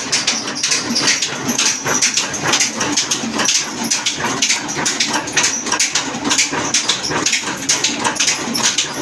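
Pakistani-made Naz Industries 20 hp horizontal diesel engine running steadily, its big flywheel turning, with a rapid, even clatter of knocks from its firing and valve gear.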